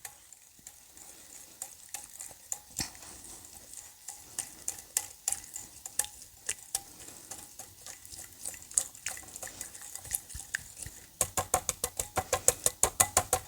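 A utensil stirring oil and ranch seasoning in a bowl, clicking against the sides: scattered taps at first, then a quick, even run of strokes, about five a second, starting near the end.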